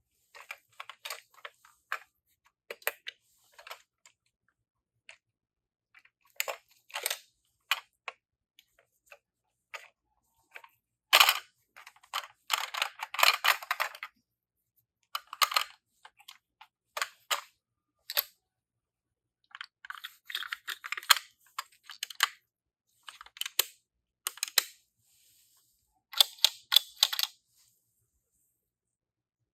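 Small toy minicars clicking and clattering against one another and a hard surface, in irregular bursts of rapid clicks, with no siren. The loudest is a sharp clack about eleven seconds in.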